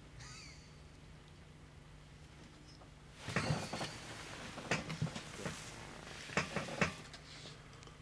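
A man's short laugh: a run of breathy chuckles starting about three seconds in and dying away near the end.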